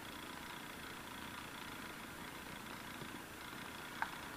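Steady faint background noise, then near the end a single sharp knock: a hammer striking a felling wedge driven into the cut of a tree being felled.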